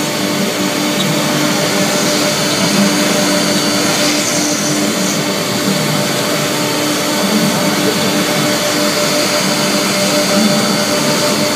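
3 kW CNC router spindle running steadily as its bit cuts an engraved pattern into a wooden board, together with the rushing air of dust extraction through the hose at the brush dust shoe. A steady hum with a hiss over it.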